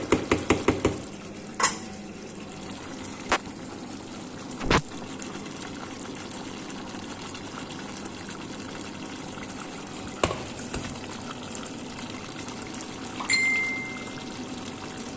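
Chicken stew simmering in a stainless steel pot, a steady bubbling hiss. A quick run of sharp taps in the first second and a few single knocks come from the wooden spoon against the pot, and a short electronic beep sounds near the end.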